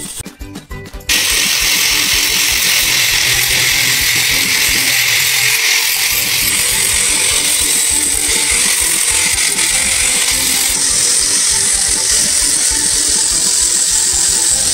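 Handheld angle grinder with a cutting disc biting into red granite tile, a loud, steady grinding noise that starts about a second in and runs on.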